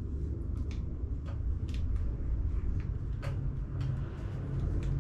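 Light clicks and knocks of metal parts as a stripped gearbox casing is handled and turned over, about eight separate taps, over a steady low rumble.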